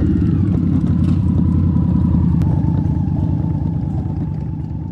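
Cruiser motorcycle engine running at low speed as the bike rolls slowly into a parking area, a steady low beat that fades down near the end.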